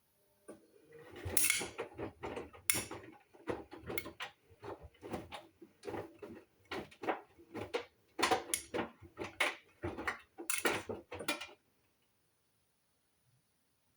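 Hoover washing machine drum turning a wash load: a run of irregular clatters and knocks that stops near the end.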